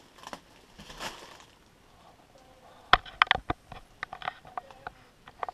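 Clear plastic wrap around a plush toy rustling and crinkling as it is handled, with a run of sharp crackles starting about three seconds in.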